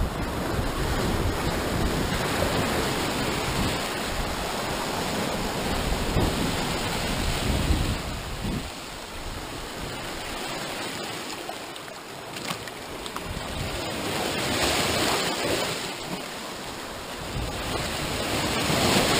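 Sea surf washing and breaking over rocks, a steady rush that swells twice in the second half. Wind rumbles on the microphone for roughly the first eight seconds.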